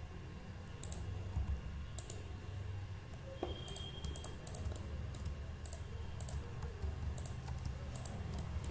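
Computer keyboard keys and mouse buttons clicking, about a dozen sharp, irregularly spaced clicks, some in quick clusters, over a steady low hum.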